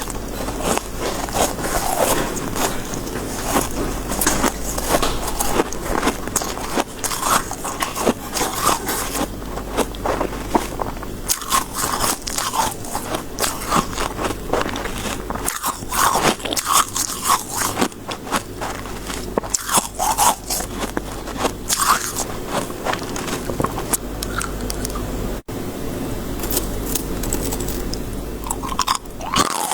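Soft, snowy freezer-frost ice being bitten and chewed close to the microphone: dense, irregular crunching right through, broken by one very brief gap about 25 seconds in.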